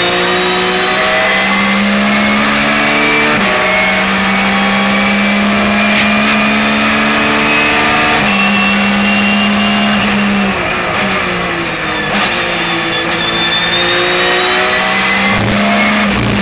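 Porsche 911 GT3 R race car's flat-six engine heard onboard at full throttle, its note climbing through the revs with quick upshifts about three and a half and eight seconds in. About ten seconds in the engine comes off the throttle and its pitch falls away under braking, then it picks up and climbs again near the end.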